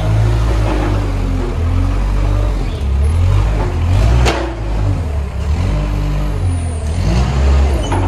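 Weidemann compact loader's diesel engine running and revving up and down as the loader drives and works its grab fork, with one sharp knock about four seconds in.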